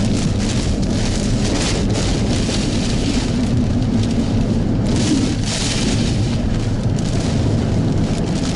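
Heavy rain pouring down, its hiss swelling and easing in waves, over a steady low rumble.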